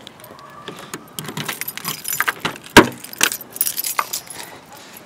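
Car keys jingling in hand as a sedan's door is unlocked and opened, with one sharp clunk from the door about three seconds in.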